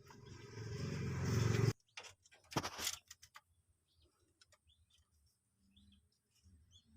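Traffic noise from a passing road vehicle swells and cuts off abruptly just under two seconds in, followed by a few sharp knocks. Then come faint, short, high chirps from birds.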